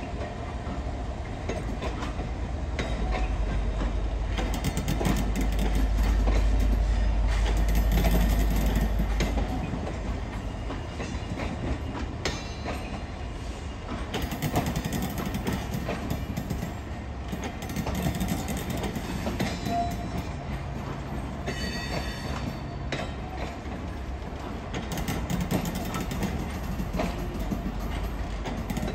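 Pullman coaches rolling slowly past, steel wheels clicking and rumbling over the rail joints. A deeper rumble swells and fades in the first ten seconds.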